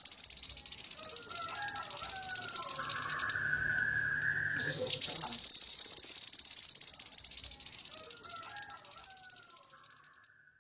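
A kinoi insect's loud, high, fast-pulsing buzz. It breaks off for about a second and a half and then fades out near the end. Under it a cucak jenggot (grey-cheeked bulbul) sings two short warbled phrases, with a held whistled note between them and another at the end.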